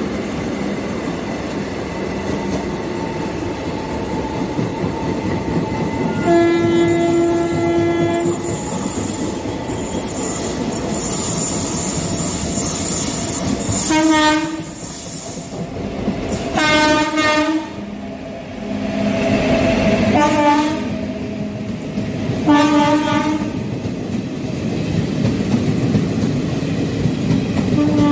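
Indian Railways passenger trains running through a station, with a steady rumble and wheel clatter from passing coaches. A locomotive horn sounds one long blast about six seconds in, then several shorter blasts.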